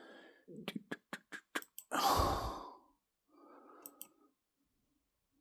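Several quick clicks, then a loud breathy exhale like a sigh about two seconds in, and a softer breath a second later.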